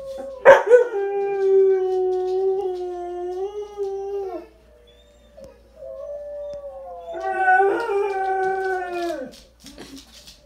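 Dog howling: two long, drawn-out howls with a short pause between, the second bending down in pitch as it ends. A sharp click about half a second in is the loudest moment.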